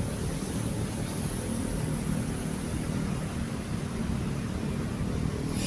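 FPV freestyle quadcopter in flight, its motors and propellers buzzing at a distance over a steady low rumble.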